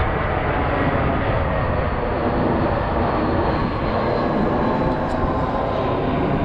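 Jet airliner passing low overhead on approach to land at the nearby runway: loud, steady jet engine noise with a faint high whine.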